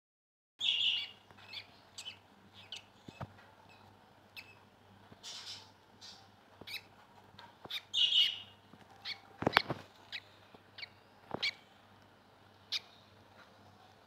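Newly hatched budgerigar chicks peeping in short, high chirps, the loudest about a second in and again about eight seconds in. A few sharp knocks come between them, the loudest about nine and a half seconds in, over a faint low hum.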